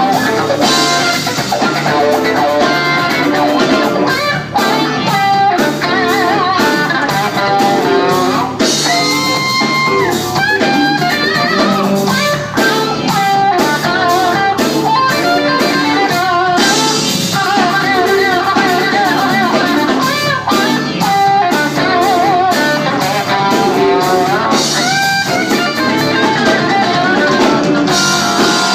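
Live electric blues band playing: lead electric guitar with wavering, vibrato-laden and held bent notes over drums, bass and keyboard.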